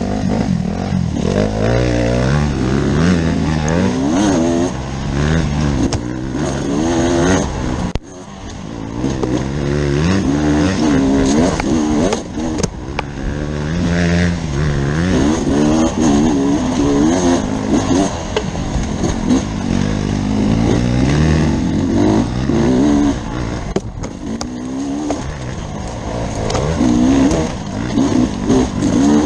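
Beta RR enduro motorcycle engine revving up and down without pause as the rider works the throttle over rough trail. The throttle shuts off briefly about eight seconds in.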